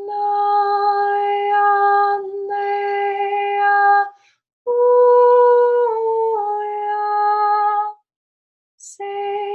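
A woman singing long wordless sacred tones, held steady: one long note, then a second one that starts higher and steps down twice. A short pause follows, and another sung tone begins near the end.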